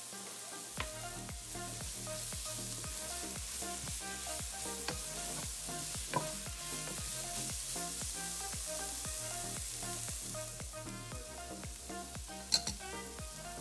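Diced onion, celery, shredded carrot and garlic sizzling in butter and oil in a stainless steel pot, stirred with a wooden spatula. A few sharp knocks of a utensil against the pot are heard, the loudest near the end. Background music with a steady beat plays underneath.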